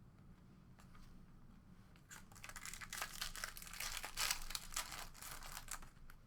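Trading card pack wrapper being torn open and crinkled: a dense run of crinkling and tearing from about two seconds in until just before the end.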